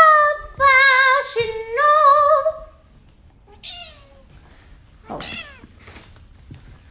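A woman singing high, wavering held notes, which stop about two and a half seconds in. After that come only a few short, faint sounds, one of them a brief falling call.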